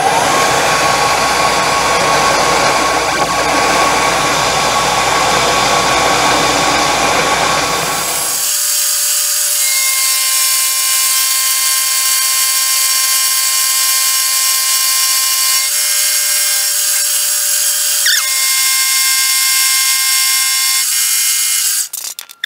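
Milling machine's end mill cutting a step into a steel vise jaw. A harsh, rough cutting noise gives way about eight seconds in to a steadier high-pitched whine of several tones over a hiss, which stops shortly before the end.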